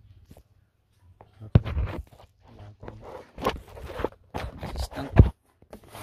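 Irregular clatters, knocks and scrapes of a removed van sliding-door latch assembly and hand tools being handled, quiet for the first second, with the loudest knocks about one and a half and five seconds in.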